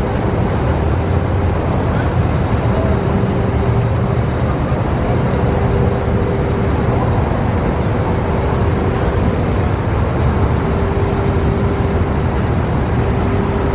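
A vehicle engine idling close by: a steady low rumble, with a thin hum that comes and goes.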